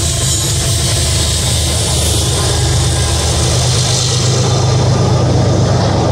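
BNSF freight train's diesel locomotives passing close by, a steady low engine drone with the rushing noise of the train rolling on the rails, the drone swelling slightly partway through.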